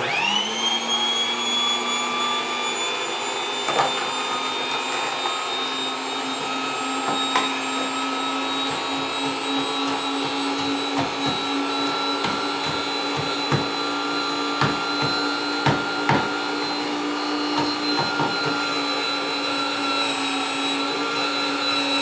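Big Boss Swirlio frozen fruit dessert maker's electric motor switching on, its whine rising and settling within a second, then running steadily. Scattered knocks come through as frozen berries are pressed down the chute with the plunger.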